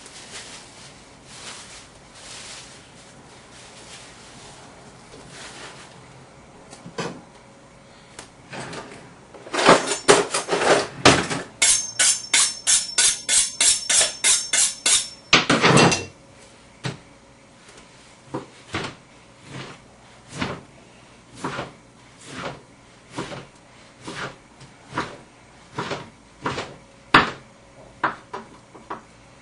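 Kitchen knife drawn against a honing steel in quick strokes with a metallic ring, about four a second, for a few seconds. Then the knife cuts on a cutting board in even knocks, about one and a half a second.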